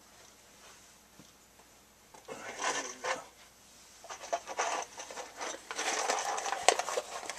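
Someone rummaging through loose hardware for a screw: scraping, rustling and small clicks and rattles, starting about two seconds in and getting busier from about four seconds.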